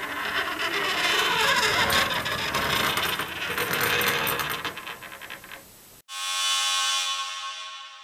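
Horror sound effects: a dense rattling, scraping clatter of rapid clicks for about six seconds, then a sudden switch to a ringing sound with several steady pitches that slowly fades away.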